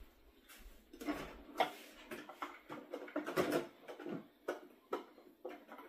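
A kitchen utensil drawer being opened and its contents rummaged through: an irregular run of clattering knocks and rattles of metal and plastic utensils.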